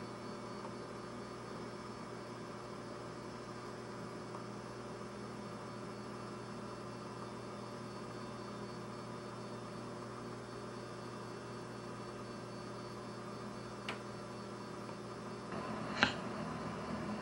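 Steady electrical mains hum with several constant tones layered over it. A faint click comes about 14 seconds in, and a short knock about 16 seconds in, followed by light handling noise.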